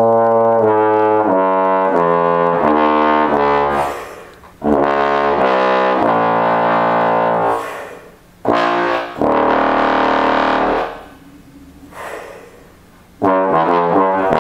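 Bass trombone played solo: low held notes moving stepwise in several phrases, with short breath pauses between them, and a new phrase starting near the end.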